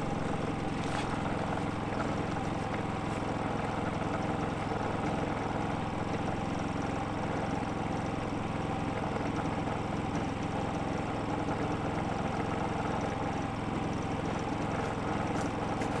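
Harbor Freight Predator 3500 inverter generator running steadily in eco mode with no load: an even, quiet engine hum.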